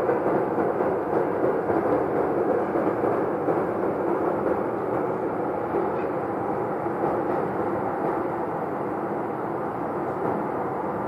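A loud, continuous rumbling drone from an unidentified source in the sky, with no clear pitch, easing off slightly toward the end.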